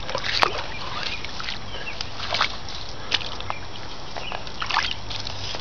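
Shallow water sloshing around bare feet, with scattered small splashes and clicks over a steady rushing hiss.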